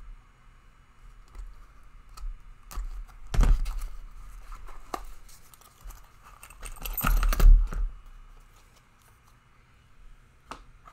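A small padlock and keys handled, metal clicking and jangling, with a louder clatter about three and a half seconds in and another about seven seconds in.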